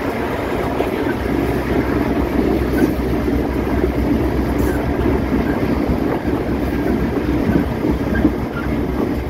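EMD GL18B diesel locomotive running along the track, heard close up beside its bogie: a steady rumble from the engine and the wheels on the rails.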